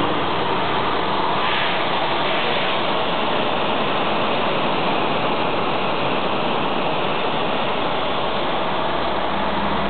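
Cutting torch of a CNC plasma cutting table running a cut in steel plate: a steady, loud hiss that does not let up.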